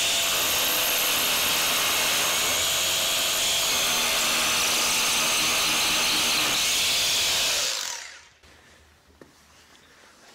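Electric power drill running flat out with a steady, loud whir, released about eight seconds in and winding down.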